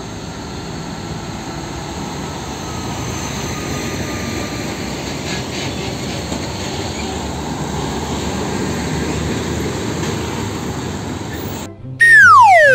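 Street traffic: large tanker trucks and motorbikes passing, a steady engine and tyre rumble that swells slightly. About a second before the end it cuts out and a loud falling whistle sound effect takes over.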